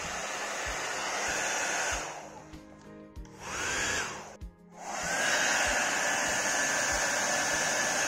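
Havells HD3225 1800 W hair dryer blowing, a steady rush of air with a high motor whine. Twice, about two and four and a half seconds in, the sound dies down and comes back with a rising whine. It then runs steadily again.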